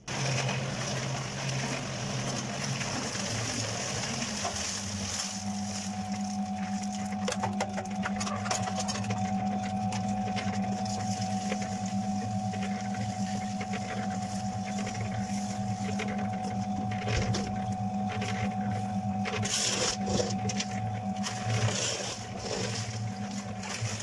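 Small electric cement mixer running steadily: motor hum under the gritty churning of the wet concrete mix tumbling in the turning drum.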